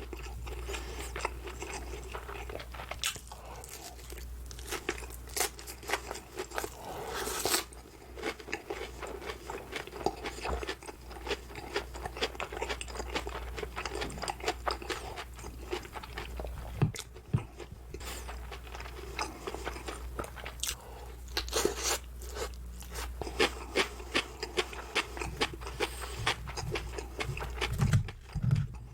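Close-miked eating: crunchy bites and chewing, most likely the breaded crust of a pork cutlet, dense crackly crunches throughout. A steady low hum runs underneath.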